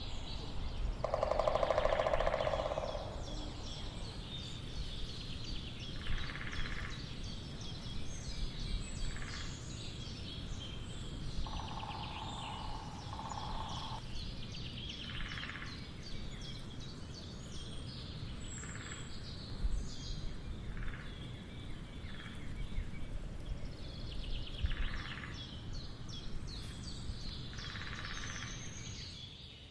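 Woodpecker drumming in a dozen or so short bursts of very rapid strikes, the longest about two seconds, among many small birds chirping and trilling, over a steady outdoor background hum.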